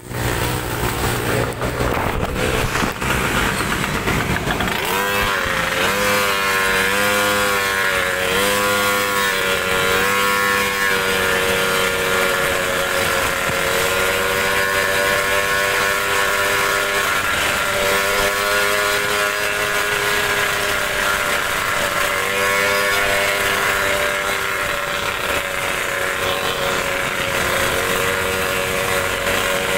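A 63cc gas scooter's small engine running under way. Its pitch climbs and wavers about five seconds in, then holds a steady high drone with brief dips, over a constant hiss.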